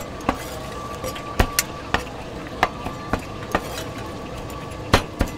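Chinese cleaver chopping on a thick round wooden chopping board: about eight sharp, irregularly spaced knocks, with the loudest strike near the end, over a steady background hum.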